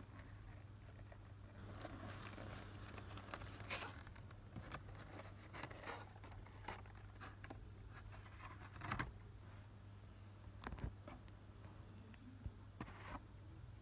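Hands handling a box's clear plastic tray insert: a couple of seconds of plastic crinkling and rustling, then scattered light taps and clicks of plastic being touched and shifted.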